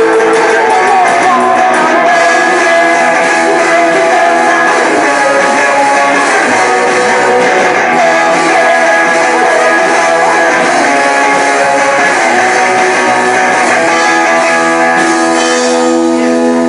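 Loud, steady guitar music: strummed, distorted-sounding guitar playing continuously.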